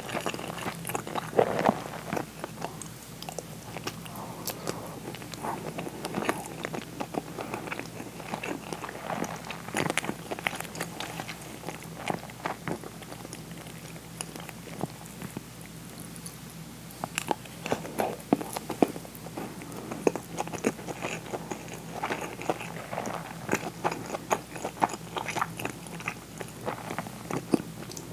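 Close-miked chewing and mouth sounds of a person eating plain white rice and pickled plum (umeboshi), with many short clicks and a faint steady hum under it.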